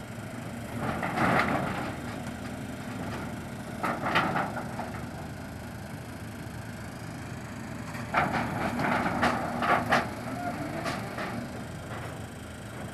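Crane engine running steadily while a slung load is lowered, broken by bursts of clattering knocks and creaks: once about a second in, again around four seconds, and in a cluster from about eight to ten seconds.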